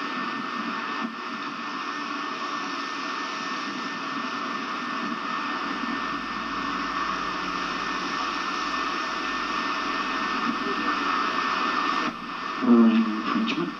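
A steady, even hiss with no distinct events. A voice starts near the end.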